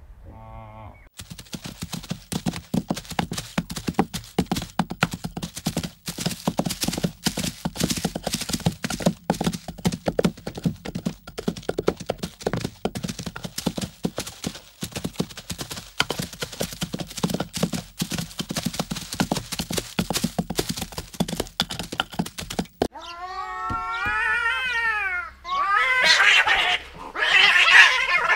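A fast, irregular clatter of sharp knocks runs for about twenty seconds. Then a kitten meows in rising and falling cries, turning into loud squalls near the end.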